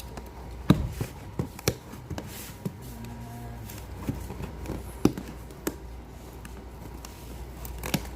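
Cardboard box and its packaging handled and opened by hand: scattered taps, scrapes and a few sharp clicks.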